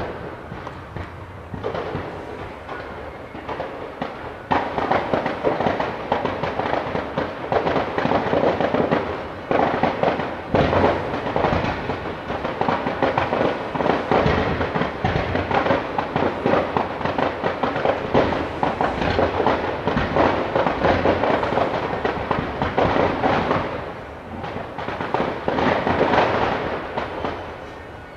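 Fireworks display: a dense, continuous crackle of pops and bursts, building up sharply about four seconds in and thinning briefly near the end before swelling again.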